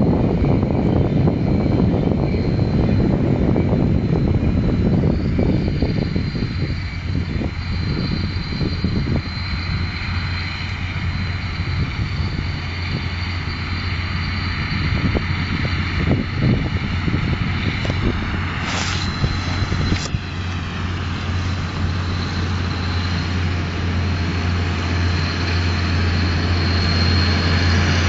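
Claas Ares 816 tractor running a Claas Variant 180 RotoCut round baler, its steady engine hum growing louder as it draws closer. Wind buffets the microphone in the first few seconds, and two sharp knocks come about two-thirds of the way through.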